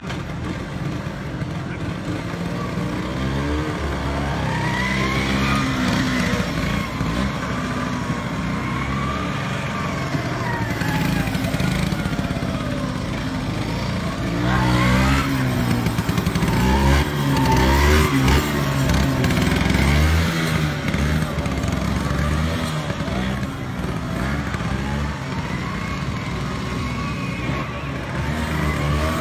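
Small engine of a vintage Vespa-type scooter revving up and falling back again and again on and off the throttle, as it is ridden slowly through a tight slalom course.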